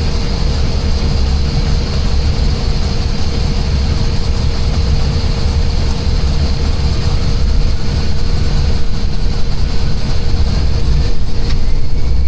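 Steady in-flight noise of an Airbus airliner heard from inside: a loud low rumble of engines and airflow with a faint constant hum, and a faint rising whine over the second half.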